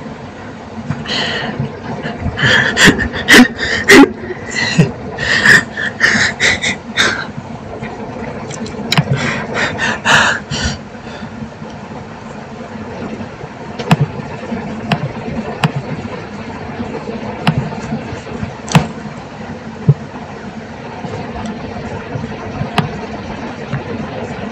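Computer mouse and keyboard clicking: two busy runs of quick taps in the first half, then single sharp clicks every second or two, over a steady low hum.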